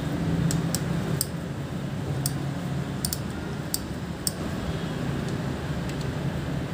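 Ratchet wrench with a socket clicking in scattered, uneven sharp ticks as an 8 mm oil-drain bolt under the engine is worked loose, over a steady low hum.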